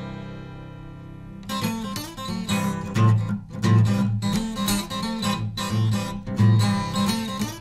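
Background music led by acoustic guitar: a held chord fades out, then rhythmic strumming starts about a second and a half in.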